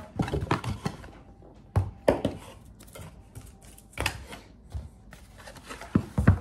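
Small cardboard trading-card box being handled and opened on a tabletop: irregular knocks and taps with cardboard rustling between them, loudest about two seconds in and again just after six seconds.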